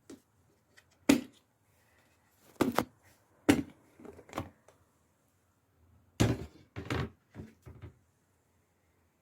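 Containers and kitchen items being handled and set down: a series of sharp knocks and thuds, about a dozen in all, with the loudest about six seconds in.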